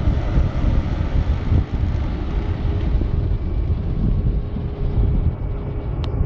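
Wind buffeting the microphone, a loud gusty low rumble, with a faint steady hum underneath and a click near the end.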